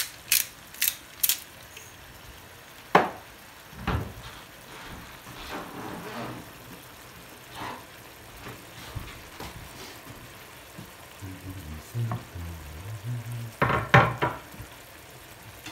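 Cod fillets simmering with tomatoes in a shallow broth in a frying pan, a steady sizzling hiss. A few sharp ticks come in the first second, and occasional knocks follow, the loudest near the end.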